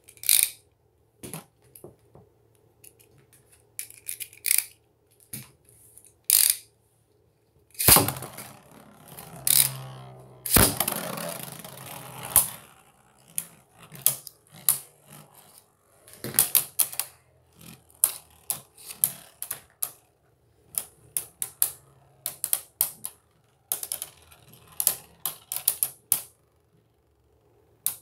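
Two Beyblade spinning tops clattering against each other and the walls of a plastic stadium in bursts of sharp clicks. About eight seconds in there is a longer whirring rush with a falling pitch as the tops are launched and spin up.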